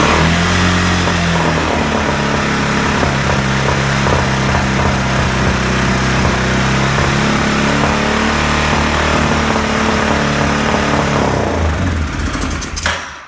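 2006 Arctic Cat 500 ATV engine running on a freshly installed carburetor. It rises in revs just after catching, then runs steadily, and is shut off near the end. The carburetor has no airbox hose, and its intake is held back by hand to keep the engine from revving too high.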